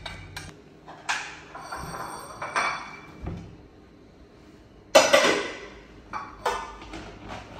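Dishes and metal cookware being handled: a few separate clanks, each with a short metallic ring, the loudest about five seconds in.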